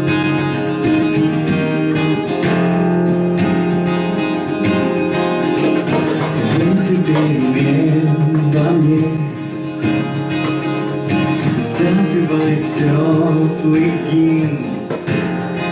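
Acoustic guitar strumming chords as the instrumental introduction to a song. A wavering melody line comes in over the chords about six seconds in.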